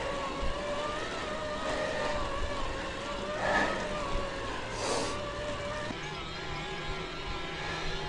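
Specialized Creo e-road bike's mid-drive motor whining under load on a steep climb, a steady tone that wavers slightly and shifts lower in pitch about six seconds in, over tyre and wind noise.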